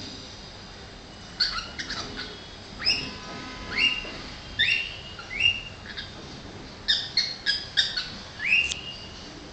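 Cockatiel chattering: a string of short upward-sliding chirps with quick runs of clipped notes between them, starting about a second and a half in and ending with one last rising chirp near the end.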